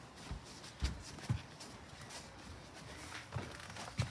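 Footsteps walking across a floor: a few soft, low thumps at uneven intervals.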